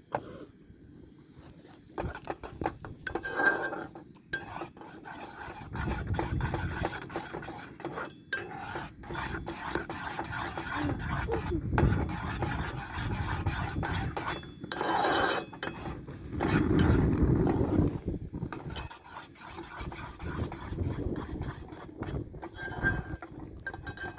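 Irregular rubbing and scraping of kitchen utensils, broken by many short knocks and clicks, as food is worked by hand.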